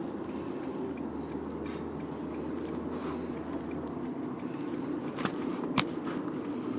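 Steady low road and engine rumble inside a moving car's cabin, with a few light clicks and ticks.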